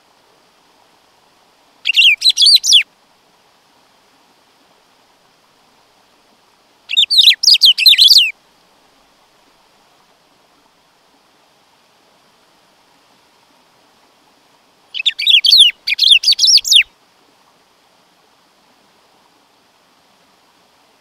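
Black-throated saltator (bico-de-pimenta) singing: three short phrases of rapid, high notes a few seconds apart, the last one the longest.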